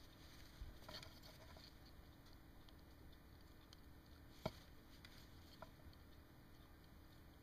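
Near silence with faint small clicks and ticks of wires and a soldering iron being handled at the bench, one sharper click about four and a half seconds in, over a faint steady hum.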